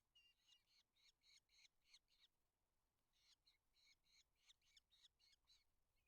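Faint rapid series of short, shrill calls from Eurasian hobbies at the nest, about four a second, in two runs with a pause of about a second in the middle.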